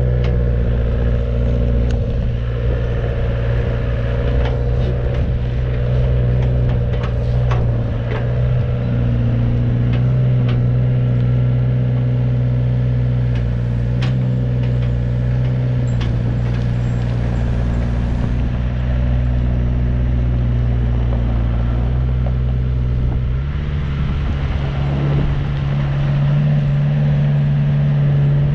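Volvo ECR88 midi excavator's diesel engine running steadily as the machine tracks and works its boom, with scattered clicks and clanks on top. The engine note changes about three-quarters of the way through.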